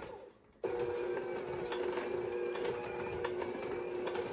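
Electric mixer running steadily, beating flour into cookie dough. The sound drops out briefly at the start and comes back about half a second in.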